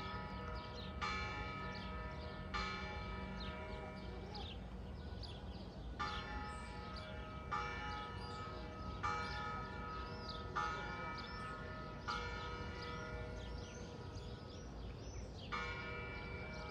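A church bell tolling: about eight strikes, roughly one every second and a half with two short pauses, each strike ringing on and fading. Birds chirp throughout.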